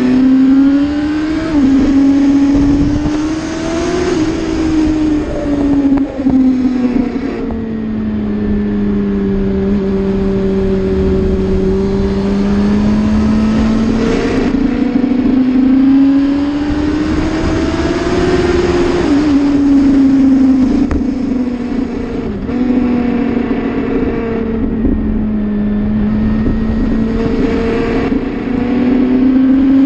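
Sport motorcycle engine heard from onboard at track speed. The note climbs as the bike accelerates, drops sharply at gear changes, and falls away when it slows for corners. Wind buffets the microphone underneath.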